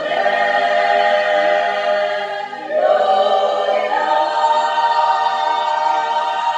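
Choir singing long sustained chords, moving to a new chord twice and holding the last one.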